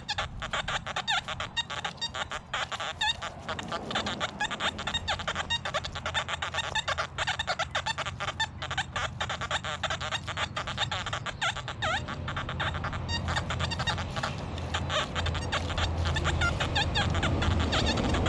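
XP Deus metal detector sounding a rapid, broken chatter of short tones as the coil sweeps over ground littered with iron.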